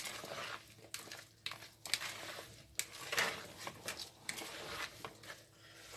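Utensil stirring and tossing salad in a bowl: irregular scraping and clinks, busiest about halfway through.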